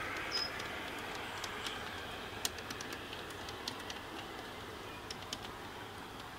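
G-scale model train coaches rolling along the garden-railway track across a metal truss bridge, wheels clicking irregularly on the rails. The rolling noise fades steadily as the train moves away.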